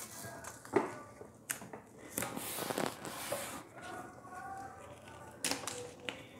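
Soft handling sounds of masking tape being pressed and smoothed down onto watercolour paper: a few light taps and a short rasping rub about two seconds in.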